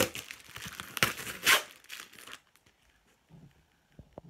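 Clear plastic packing tape being ripped off a cardboard shipping box and crumpled, in a run of loud rips over the first two seconds or so, then only faint handling sounds and a couple of light clicks.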